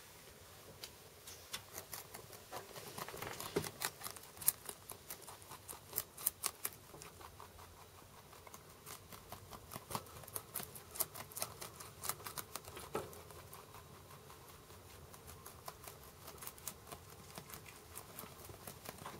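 Holland Lop rabbit chewing a cabbage leaf close up: rapid, crisp crunching clicks that come in spurts with short lulls between them.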